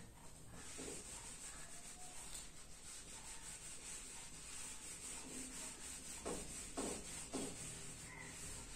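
Whiteboard eraser rubbing back and forth across a whiteboard, wiping off marker writing in quiet, continuous strokes.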